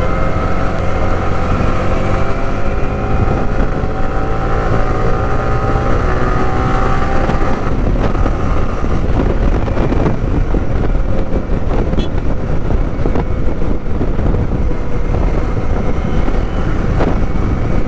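Yamaha R15 V3's single-cylinder engine running under way, with wind buffeting the microphone. For the first half a steady engine tone slowly shifts in pitch; after that wind and road noise take over.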